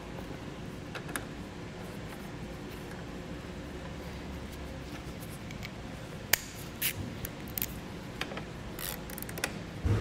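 Hand ratchet with a 13 mm socket tightening the nut on a battery accessory post: sharp metallic clicks about every two-thirds of a second, starting about six seconds in, over a faint steady hum.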